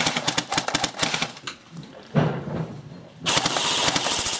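Airsoft guns firing rapid full-auto bursts: a long string of quick cracks through the first second and a half, then another dense burst near the end.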